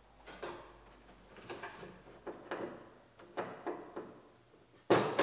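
Parts being handled and fitted inside a car door shell: a string of light knocks and clicks, several with a brief ring, and a sharper, louder knock near the end.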